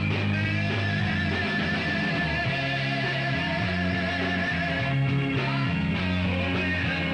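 Rock music: guitar over a bass line that moves from note to note, with long held, wavering high notes above.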